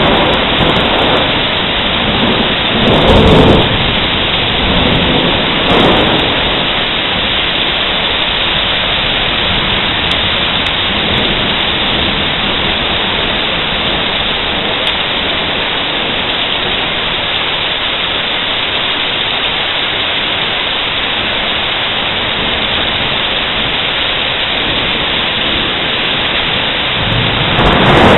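Thunderstorm: steady heavy rain with rolls of thunder, the loudest about three seconds in and again near the end, and a smaller one around six seconds in.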